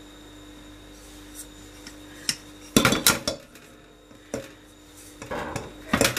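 Metal cake tin knocking and clattering against a ceramic plate as it is lifted and jiggled to free a cake stuck inside it: a couple of light clicks, then a burst of loud clatters about three seconds in, a single knock, and another rattle and clatter near the end.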